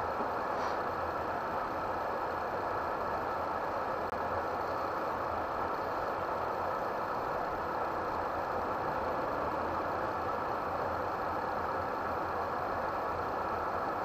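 Steady engine and road noise heard inside a camper's cab while it drives along a highway.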